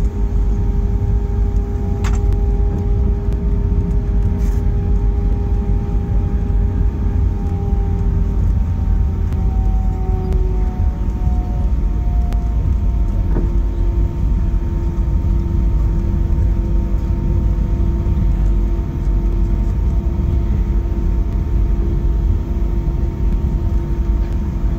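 Cabin noise of an Airbus A320-family jet during its landing rollout, ground spoilers up: a heavy, steady low rumble from the engines and the wheels on the runway. The engine whine drops in pitch partway through and settles to a lower steady tone as the aircraft slows.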